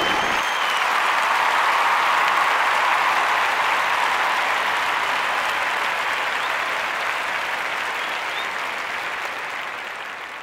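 An audience applauding steadily, slowly fading out toward the end.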